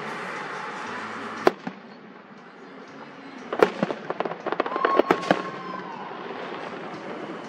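Fireworks going off: a single sharp bang about a second and a half in, then a quick volley of cracking bangs with a steady whistle under them.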